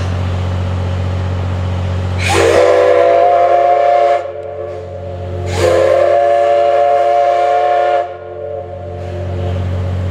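Steam whistle of the C11 207 tank locomotive, blown twice: two blasts of about two seconds each that rise in pitch as they open, the second a little longer, over a steady low hum.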